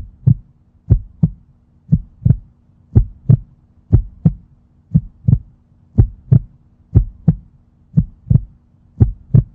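Heartbeat sound effect: a steady lub-dub of paired deep thumps, about one pair a second, over a faint steady hum.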